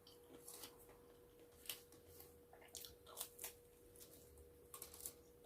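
Faint chewing and wet mouth clicks of a person eating pizza, in short scattered bursts, over a faint steady hum.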